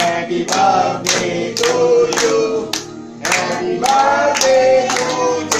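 A group of family members singing a birthday song together and clapping along in time, about two claps a second, with a short pause between phrases about three seconds in.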